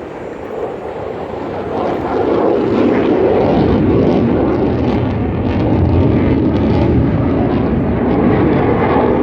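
Lockheed Martin F-35 fighter jet's engine noise, swelling over the first two seconds and then holding loud as the jet passes over.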